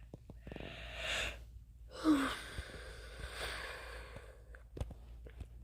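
A person breathing out heavily into the microphone twice, long sigh-like exhalations, with a brief voiced sound at the start of the second; a faint click near the end.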